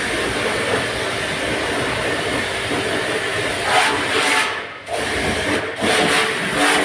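High-pressure washer jet spraying with a loud, steady hiss, cutting out briefly twice a little past the middle.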